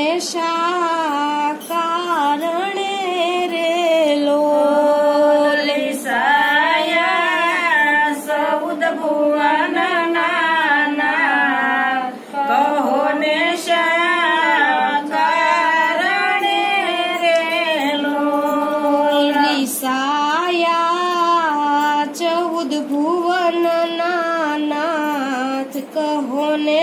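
A woman singing a Gujarati devotional bhajan unaccompanied, in a steady stream of phrases with wavering, ornamented pitch.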